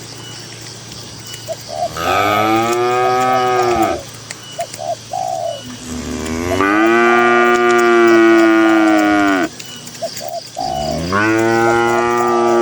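Cattle mooing: three long moos, the first about two seconds long, the second longer at about three seconds and rising into it from a low start, the third beginning about eleven seconds in.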